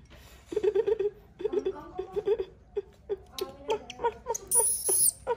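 Newborn baby monkey crying in short, repeated whimpers, with thin high-pitched squeals near the end.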